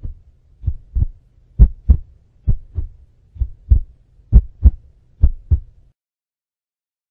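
Heartbeat sound effect: slow, even double thumps, lub-dub, about one beat a second, building suspense before a result is revealed. It stops about six seconds in.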